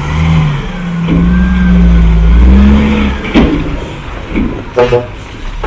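Heavy truck's diesel engine running, its pitch rising and falling as it revs. There is a sharp knock a little past three seconds in and a brief pitched tone just before the end.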